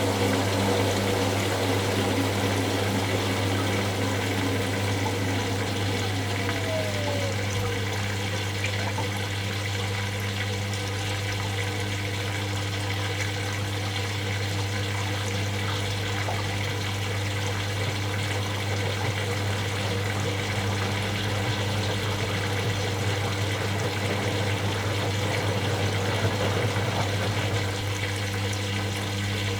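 Washing machine running with a steady hum and water rushing through it. A brief falling tone sounds about seven seconds in.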